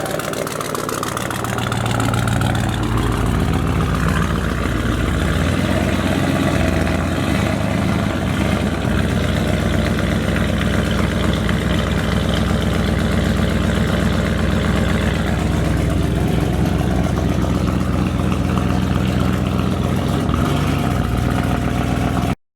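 Ford F-150 pickup's engine idling steadily. The sound cuts off abruptly near the end.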